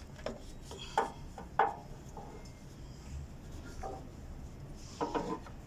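A few sharp clicks and knocks of hands and tools working on a diesel engine's fuel filter, the loudest about one and a half seconds in and a short cluster near the end.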